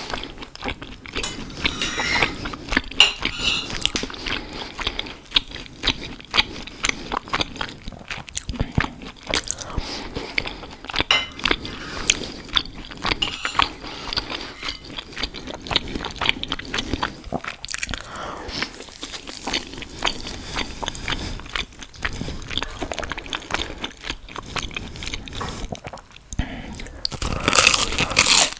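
Close-miked eating sounds: biting and chewing, with crisp crunches scattered throughout. A louder spell of crunching comes near the end.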